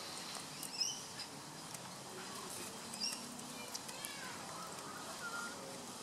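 Faint bird chirps and short whistled glides, with a few light ticks from an Australian magpie pecking and stepping in dry wood-chip mulch.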